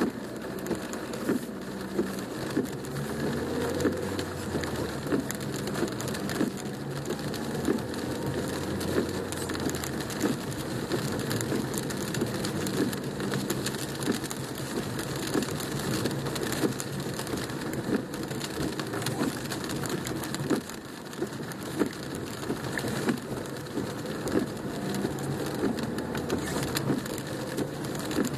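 Heavy rain drumming on a car's roof and windshield, heard from inside the cabin, with frequent sharp taps of single large drops and the car's engine running low underneath.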